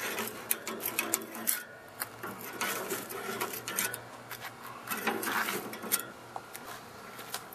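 Metal poker knocking and scraping among charcoal briquettes under a grill grate: a run of irregular clinks and clicks.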